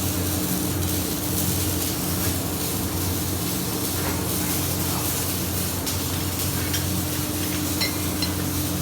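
Steady hiss over a low, even hum: workshop background noise.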